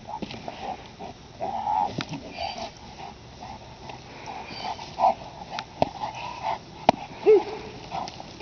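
Presa Canario gripping a jute bite sleeve, with short, repeated hard breaths and growls coming out around the grip. A few sharp clicks are scattered through it, and a short pitched call comes near the end.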